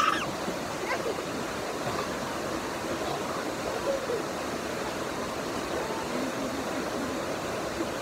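Waterfall water rushing steadily over rocks in a cascading stream. A brief high-pitched voice cries out right at the start, with faint voices later.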